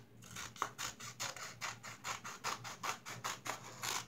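Scissors trimming paper, a quick run of short crisp snips mixed with the rustle of the paper being handled.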